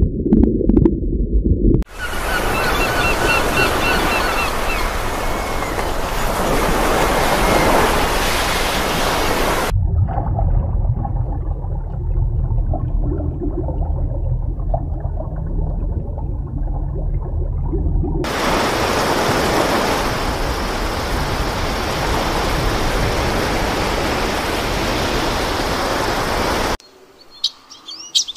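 Steady rushing underwater sea noise that changes abruptly at cuts, from a deep muffled rumble to a full hiss, back to muffled, then hiss again. Near the end it drops away and a white zebra finch gives a few quick high chirps.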